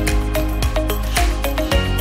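Background music with a steady beat, a deep bass line and sustained synth notes.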